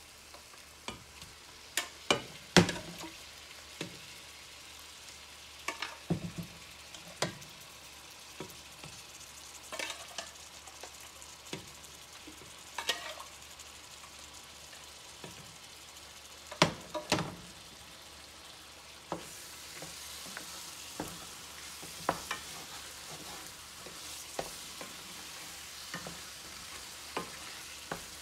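A spoon knocks and scrapes against a steel pot at irregular moments as chunks of marinated mutton are spooned into a stainless steel sauté pan of masala. About two-thirds of the way through, a steady sizzle of the meat and masala frying sets in, with stirring.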